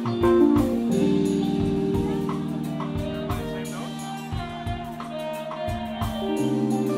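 Live jazz-funk band playing: long held keyboard chords over bass, guitar and a steady drum beat.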